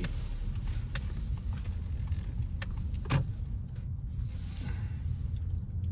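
Cabin noise inside a 2022 Honda Civic Sport on the move: a steady low rumble of road and engine, with a few light clicks.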